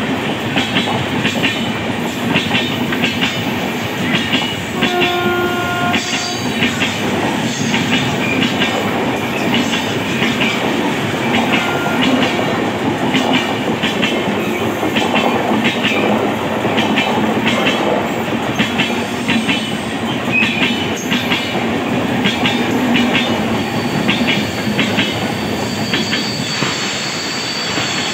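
Passenger coaches of an express train running past at speed, the wheels clattering over rail joints in a steady, repeating rhythm. A brief tone sounds about five seconds in, and a thin high squeal rises near the end.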